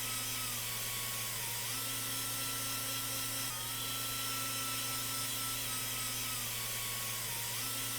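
Electric sander running steadily with a motor whine over a hiss of sanding. Its pitch dips and recovers twice, near the start and near the end.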